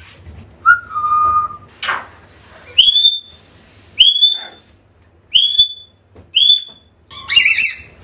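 African grey parrot whistling. A short held whistle comes first, then four short whistles that sweep sharply up in pitch, about one a second, and a warbling call near the end.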